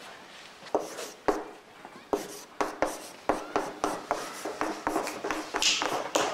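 Chalk writing on a blackboard: a quick, uneven run of taps and scratches as letters are written, starting about a second in, with a brighter, higher scrape near the end.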